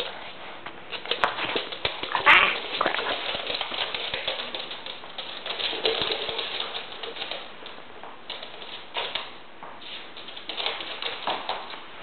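Dogs playing and scuffling, with rapid, irregular clicking and scraping, the loudest about two seconds in.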